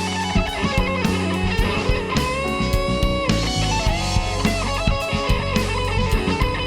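Instrumental passage of a song: a lead melody of long held notes with slow pitch bends over plucked guitar, bass and a steady drum beat.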